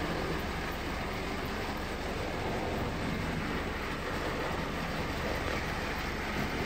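Vintage tinplate model train running on metal track, a steady running noise with no breaks.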